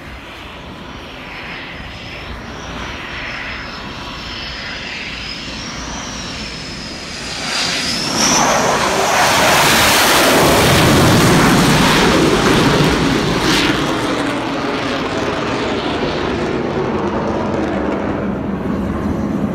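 An F/A-18 Hornet's twin jet engines on approach and touch-and-go on a carrier deck. A high whine wavers and grows louder for about eight seconds. The jet noise then swells sharply to its loudest for several seconds as the jet rolls along the deck and powers away, then stays loud and steady. A single sharp knock comes a few seconds after the peak.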